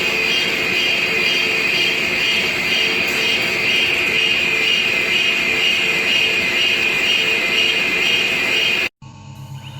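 Metal lathe taking a heavy roughing cut: a loud, steady grinding whine that pulses evenly about twice a second. It cuts off abruptly near the end, and a quieter machine sound starts with a rising whine.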